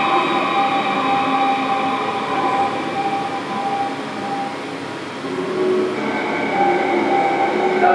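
Train running: a steady rumble with several sustained high whining tones, played back as the installation's soundtrack in a tiled room. It dips a little in level about four to five seconds in and swells again.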